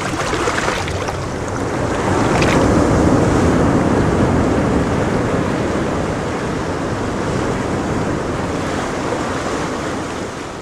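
Small waves breaking and washing up a pebbly shore. The wash swells a couple of seconds in and eases off toward the end.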